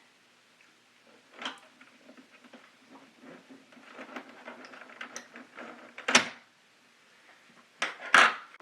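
Plastic keyboard case being handled and worked at its clips: light scraping and tapping, with a sharp plastic click about six seconds in and two more near the end.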